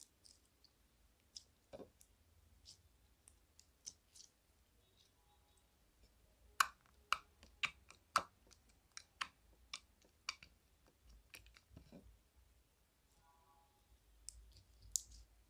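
Purple glitter slime squeezed and pressed by fingers on a ceramic plate, making quiet sticky clicks and pops. They come in scattered ones and twos, then in a quick run from about six to ten seconds in.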